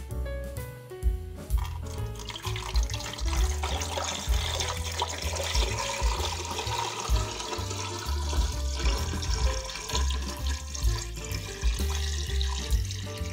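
Cold water poured in a thin, steady stream into a multicooker bowl full of pork and turkey pieces, splashing over the meat and starting about two seconds in. Background music plays throughout.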